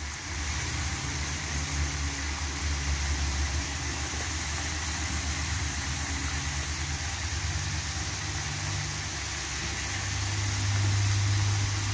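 Potato fries deep-frying in hot oil, a steady sizzle and bubbling over a low steady rumble that grows a little louder near the end.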